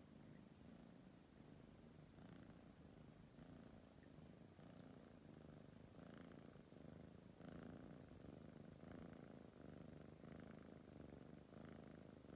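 Tabby kitten purring softly, the purr rising and falling in an even rhythm with its breathing and growing a little stronger about halfway through.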